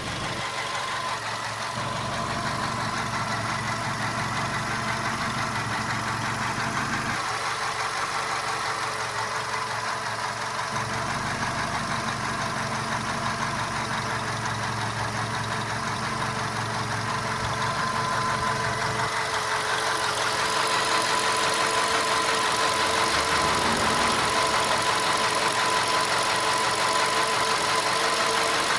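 Volkswagen Golf Mk5 engine idling with a knocking noise, the fault being diagnosed. It grows louder about two-thirds of the way in.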